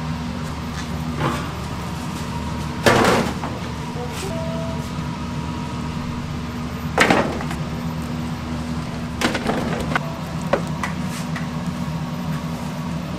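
Metal clanks of a large stainless-steel stockpot's lid and a wire-mesh strainer knocking against the pot while boiled pork trotters are lifted out, over a steady low hum. Two loud clanks come about three and seven seconds in, followed by lighter knocks.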